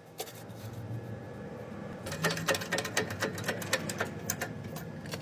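Quick, irregular clicking and tapping starting about two seconds in, over a low steady hum.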